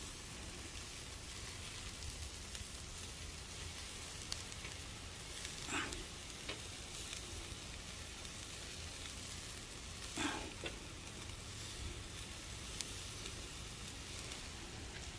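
Beef sizzling steadily on a wire grill rack over charcoal. Two short rising sounds come through about six and ten seconds in.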